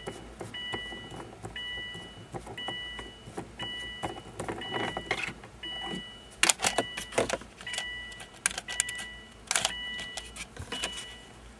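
Screwdriver working the screw at the base of a car's automatic shift lever, with sharp metal clicks and clatters, loudest a little past halfway. Under it a two-tone electronic warning chime beeps steadily, about once a second.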